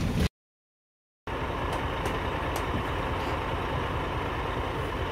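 Heavy tank truck's diesel engine running steadily at idle. The sound drops out completely for about a second near the start, then the even rumble carries on.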